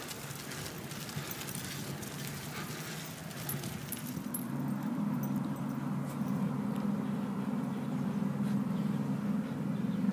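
Metal chain leashes jingling and clinking, with dog claws clicking on pavement. About four seconds in this gives way to a steady low engine hum.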